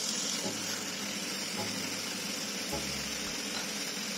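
Thin chicken fillets sizzling in hot olive oil in a nonstick frying pan, a steady hiss.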